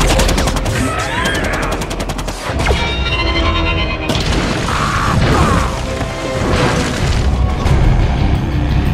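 Action-film battle sound mix: a music score under heavy booms and rapid runs of gunfire-like cracks and metal clatter, from giant robots fighting.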